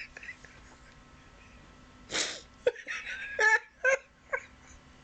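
A man catching his breath after laughing hard: a loud, sharp breath about two seconds in, then a few short, breathy laughs.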